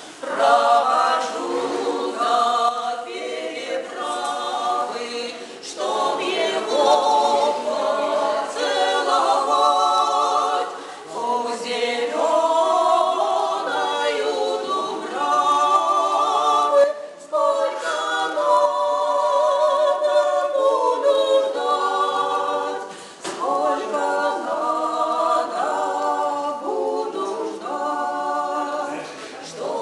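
Female vocal trio singing a song a cappella, three voices together in harmony, with short breaks between phrases.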